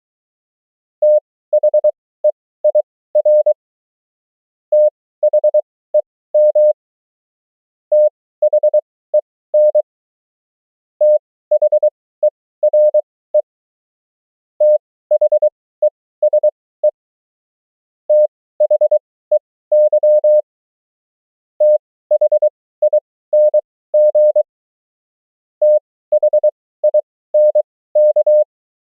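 Morse code (CW) keyed as a single steady tone in dots and dashes, at a character speed of 23 wpm and an effective speed of 20 wpm. It sends one common amateur-radio word or abbreviation about every three to four seconds, each separated by a pause of about a second.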